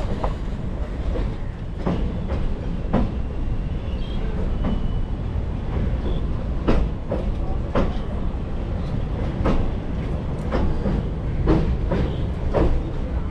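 Express passenger train running across a riveted steel girder rail bridge. A steady heavy rumble is broken by irregular sharp clacks of the wheels over rail joints.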